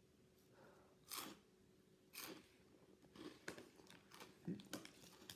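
Cheez-It Crunch cheddar crackers being chewed: a quiet start, then a series of short, crisp crunches from about a second in, coming faster toward the end.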